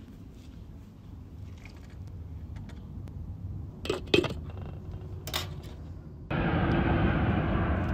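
Glass-and-steel lid clinking against a steel stockpot of boiling water as it is lifted, a few sharp clinks around the middle. About six seconds in, a loud, steady splashing of water starts suddenly.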